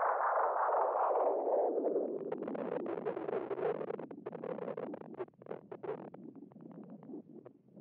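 Electronic noise music from effects processing: a dense hiss that sweeps downward like a closing filter over the first two seconds, then thins into quieter crackling and clicking noise that fades away.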